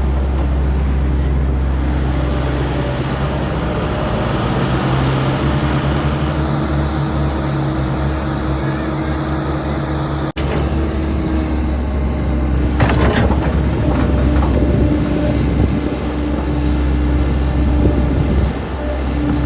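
Engine of a heavy well-digging machine running steadily under work. The sound cuts out for an instant about halfway, and there is a short burst of clattering noise about two-thirds through.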